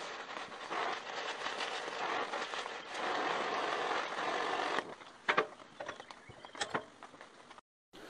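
Oxy-fuel torch flame hissing steadily as it heats a steel round-stock rod clamped in a vise for bending. The hiss stops about five seconds in, followed by a couple of light metal clinks.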